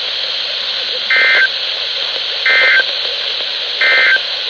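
Three short bursts of Emergency Alert System end-of-message data tones, a buzzy two-tone warble, each about a third of a second long and a little over a second apart. They signal the end of the broadcast warning. Steady radio static hiss runs underneath.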